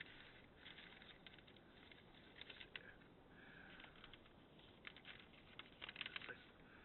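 Faint rustling and scattered light clicks of a cardboard shipping box and its packing being handled and opened, a little louder and busier near the end.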